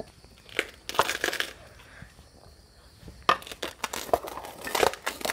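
A small metal trowel scooping a dry potting mix of sand, cow-dung powder and coir pith out of a steel pot and tipping it into a plastic pot. It scrapes against the metal and the soil crunches in several separate scoops, the loudest about a second in and again between three and five seconds in.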